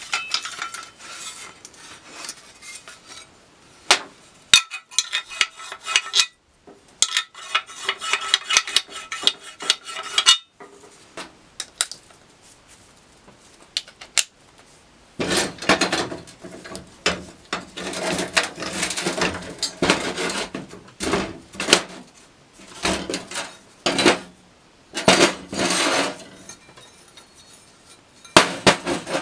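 Hand work on metal parts: repeated clinks and knocks of metal pieces and tools being handled, with rattling stretches early on and a run of noisy scraping and knocking bursts in the second half.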